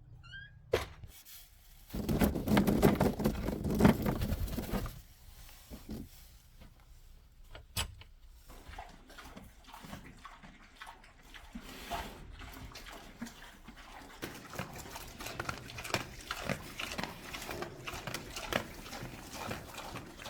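Domestic animal noises, loudest for about three seconds near the start, followed by scattered knocks and rustling.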